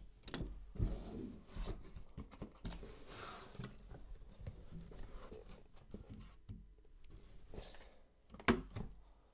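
Hands handling a cardboard box and hard plastic card cases: soft scrapes, rustles and small clicks as the box lid comes off and the cases are lifted out and set down, with a few louder knocks near the end.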